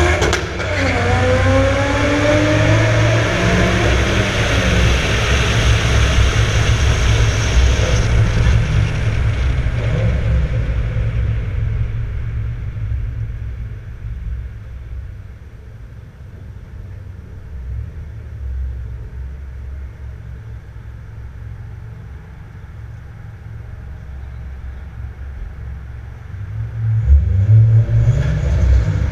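Turbocharged 1JZ-GTE VVT-i straight-six of a mk3 Toyota Supra accelerating in a concrete tunnel, its sound echoing off the walls. The revs drop about a second in, then it pulls loudly for around ten seconds, eases off to a quieter run, and accelerates hard again near the end.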